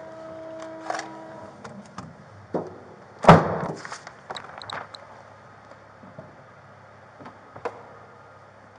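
A car trunk lid slammed shut about three seconds in, the loudest sound, with lighter clicks and knocks of handling before and after.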